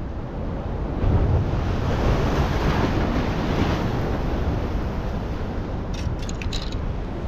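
Ocean surf washing against jetty rocks, a steady rushing noise with wind buffeting the microphone, a little louder from about a second in. A few short clicks come near the end.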